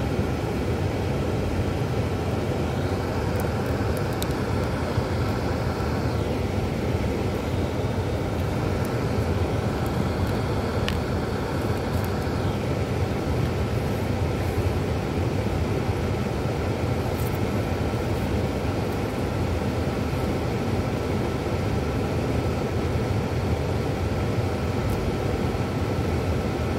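Steady low hum and rumble inside a stopped car's cabin, its engine idling.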